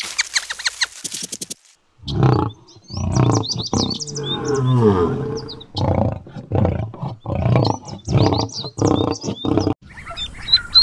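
A male lion roaring: a series of deep repeated calls with one longer call falling in pitch, light high chirps above them. Light clicks come before it, and near the end rapid high peeps of ducklings take over.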